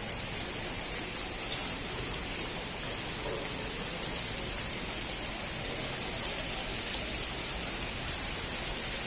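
Steady rain falling and pattering on surfaces, an even hiss with faint scattered drop ticks.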